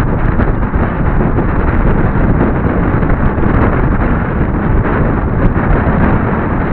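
Loud, steady wind noise rushing over the microphone in a pair of camera sunglasses worn by a cyclist descending fast on a road bike.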